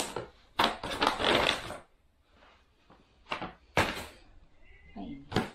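Paper shopping bag and clothing packaging crinkling and rustling as clothes are pulled out: about a second of rustling near the start, then a few short crackles.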